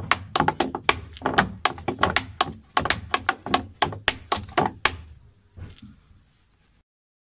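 Irish dance steps: black hard-soled shoes tapping and stamping on a board in a quick run of sharp taps, several a second. The steps stop about five seconds in, followed by one soft thud as the feet come together.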